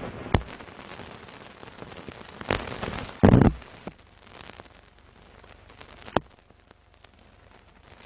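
Scratchy old-film soundtrack noise behind a film-leader countdown: a steady hiss full of crackles and pops, with a few sharp clicks and a louder thud about three seconds in. A short beep sounds at the very end.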